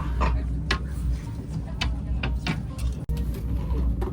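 Low, steady rumble of a moving vehicle, with irregular sharp clicks and knocks over it.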